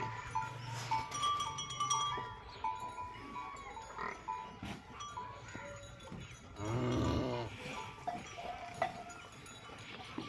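A calf lows once, a short call under a second long about seven seconds in. Short high chirping tones and a low hum fill the first couple of seconds.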